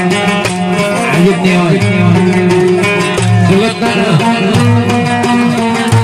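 Live Egyptian folk music with an oud playing, its melody bending and ornamented over held low notes.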